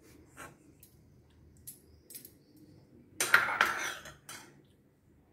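Stainless-steel kitchenware clinking and knocking as a thin cloth is spread over a steel mesh strainer: a few light clinks, then a louder clatter lasting about a second, about three seconds in.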